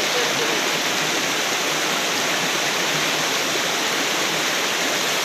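River water rushing steadily over stones, a constant even noise.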